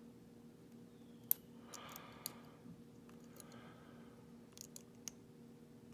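Faint small metallic clicks of a lock pick and tension wrench working the pin stacks in a Schlage padlock's core, a few scattered clicks with the sharpest about a second in, over a low steady hum.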